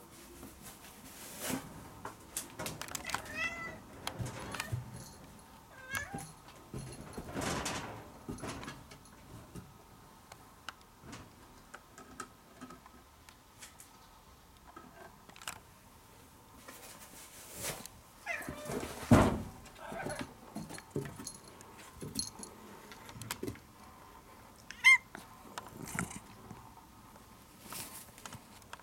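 Orange-and-white domestic cat meowing several times, short separate calls spread out with gaps between them. A loud knock comes near the middle, among scattered small clicks and knocks.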